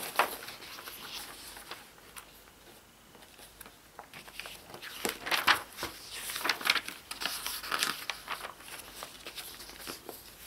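Pages of a glossy magazine being leafed through by hand, the paper rustling in a string of short bursts, with a quieter pause a few seconds in.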